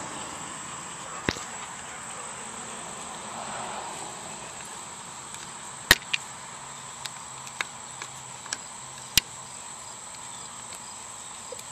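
Flathead screwdriver working a screw inside a Mossberg 500 shotgun's receiver through the ejection port: scattered sharp metal clicks of the tip against the screw and receiver, one about a second in and several between about six and nine seconds in, over a steady hiss.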